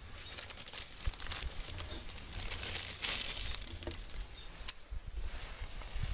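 Crackling and crinkling of a small wood fire catching in a stainless-steel twig stove, busiest in the middle, with one sharp snap near the end, over a low rumble of wind on the microphone.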